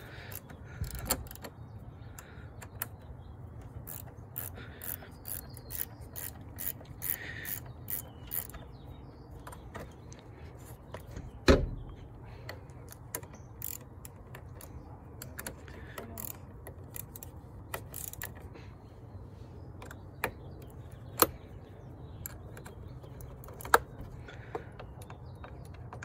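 Ratcheting wrench clicking as the 8 mm bolts on a car battery's terminal clamps are loosened, with quick runs of clicks in the first several seconds and scattered sharper ticks later. One loud knock of metal about halfway through.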